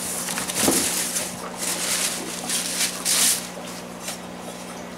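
Cardboard box and plastic packing rustling in several bursts as hands dig a cichlid stone out of its box.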